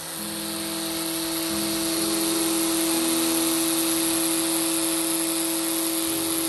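Angle grinder converted into a grass trimmer, spinning steel-wire cutters at high speed with a steady whirring whine. It grows louder over the first two seconds and then holds.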